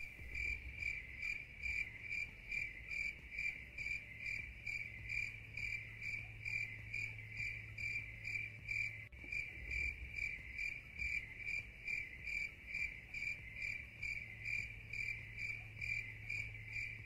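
Cricket chirping in a steady, even rhythm of about two and a half chirps a second over a faint low hum. It starts and stops abruptly at the cuts, as a sound effect laid over a silent stretch.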